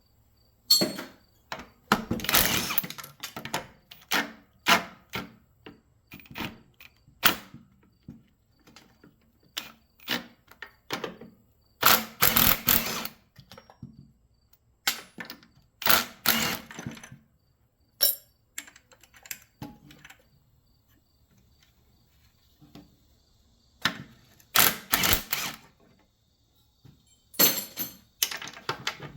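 Impact driver rattling in several short bursts of about a second, backing bolts out of a motor starter, with scattered clicks and clinks of metal parts being handled between bursts.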